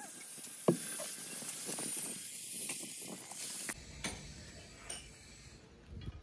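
Knocks and scraping as moulding sand is broken out of a freshly cast truck brake drum, over a steady high hiss, with a sharp knock about a second in. About four seconds in the hiss stops and a low rumble with a few fainter knocks takes over.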